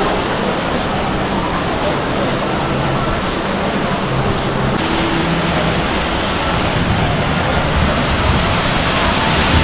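Steady rushing of water in the boat ride's channel, with a faint murmur of voices under it.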